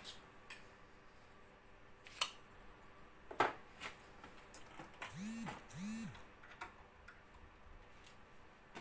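Sparse workshop handling sounds: a few sharp clicks and knocks spread through the first half, then two short squeaks a little under a second apart, each rising and falling in pitch.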